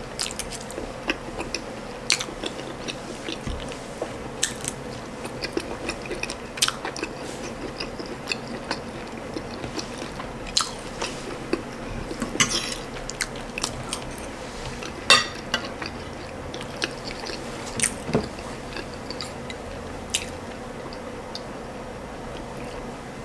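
Close-up mouth sounds of a person eating ndole and boiled ripe plantain: irregular wet chewing clicks and smacks, a few louder than the rest, over a faint steady hum.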